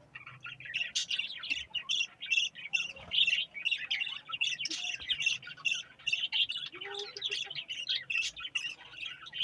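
Budgerigars chattering: a dense, continuous run of quick overlapping chirps, squawks and warbles from several birds.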